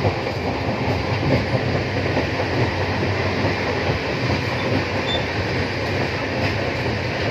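Steady running noise of a Rajdhani Express passenger train in motion: a continuous rumble of wheels on the track.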